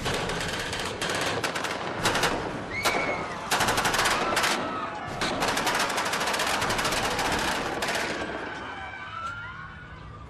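Gunfire in a staged shootout: scattered single shots at first, then long rapid bursts of automatic fire, dying away over the last couple of seconds.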